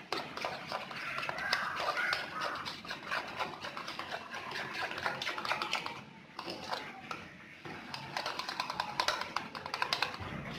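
A spoon stirring a thick yogurt-and-spice marinade in a ceramic bowl, making quick, irregular clicks and scrapes against the bowl, with a short pause about six seconds in.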